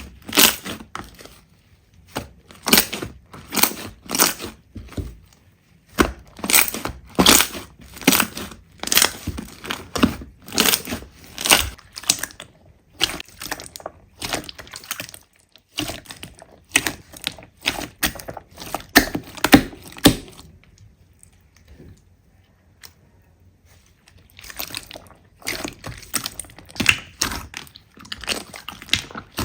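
Slime being squeezed and pressed by hand, giving runs of crisp crackling and popping. The crackling pauses for a few seconds about two-thirds of the way through, then starts again.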